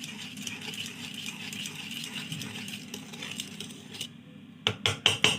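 Black pepper being added to the béchamel: steady kitchen background, then near the end a quick run of sharp rattling clicks from the pepper container.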